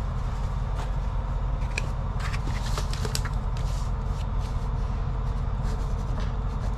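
Sheets of paper rustling and being handled on a counter, with a pen signing a work-order form, over a steady low background hum.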